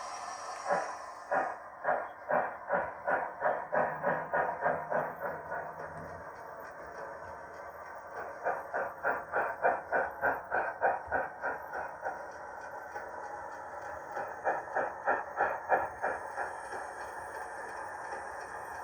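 Sound decoder in a 7mm scale GWR steam railmotor model playing steam-engine effects through the model's small speaker: a hiss that stops near the start, then exhaust chuffs that quicken as the railmotor gets under way. The chuffs fade about six seconds in, and two more runs of chuffs follow, the last one shorter.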